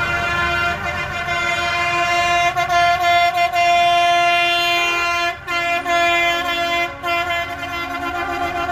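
Several truck horns of different pitch sounding together in long, steady, overlapping blasts as a drive-by honking salute, with brief breaks about five and seven seconds in.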